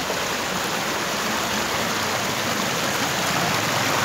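Steady rushing of falling water from a waterfall, growing slightly louder.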